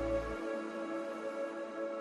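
Background music of sustained, held chords; a low bass layer drops out about half a second in.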